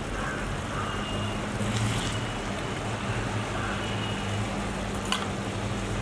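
Large cast iron pan of tomato sauce with eggs simmering, with soft bubbling over a steady low rumble and a couple of sharp clicks, one about two seconds in and one about five seconds in.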